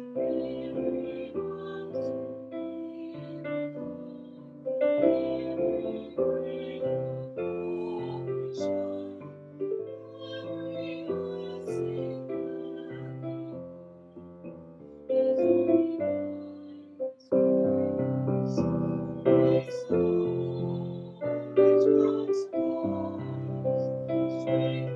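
Piano playing a hymn tune in full chords, getting louder in the last third.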